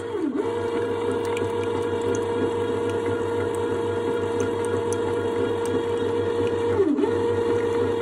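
Midea HM20Q1-TSZ bread maker's kneading motor running steadily as the paddle works the dough, a loud, even hum. Twice, just after the start and again about seven seconds in, the pitch sags briefly and then picks back up.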